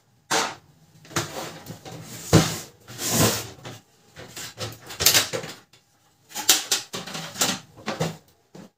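Hands working on a laser printer's plastic casing and parts during disassembly: irregular clicks, knocks and scraping rattles in short bursts.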